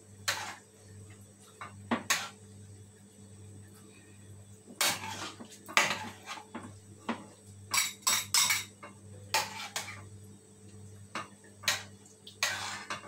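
A metal spoon clinking and scraping against a stainless cooking pot and ceramic bowls as soup is dished out, in irregular knocks a second or two apart with a few quick clusters, over a steady low hum.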